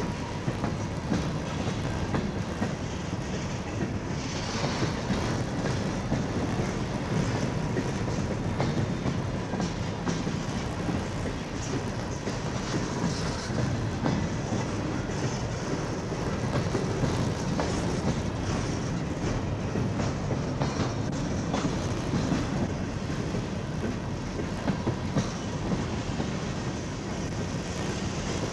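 Freight cars of a CSX freight train rolling steadily past, with a continuous rumble and the clicking of wheels over rail joints.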